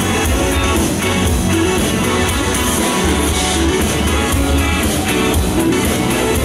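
Live rock band playing, with electric guitar over bass and drums.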